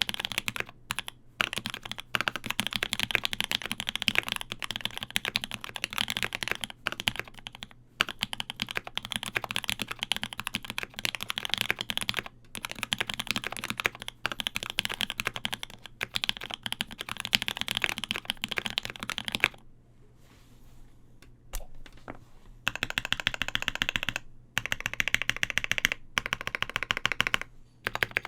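Fast, continuous typing on a KBD75 V3.1 mechanical keyboard with lubed Popu linear switches, a polycarbonate plate and GMK keycaps: a dense stream of key clacks. The typing stops for about three seconds about two-thirds of the way in, with one lone click, then resumes.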